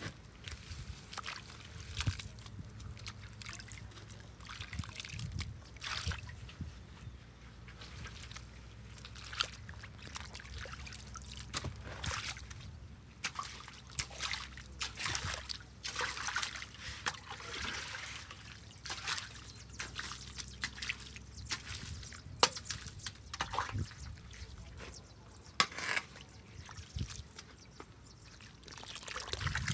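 Muddy water trickling and sloshing as it drains into a partly cleared culvert pipe, with irregular splashes and scrapes as a long-handled tool is worked through mud and debris at the pipe's mouth.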